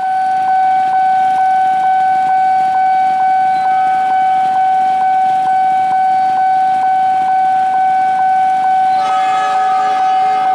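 Level-crossing warning alarm sounding: one high steady electronic tone with faint ticks about three times a second. About nine seconds in, a second, lower horn-like tone joins, the horn of the approaching electric commuter train.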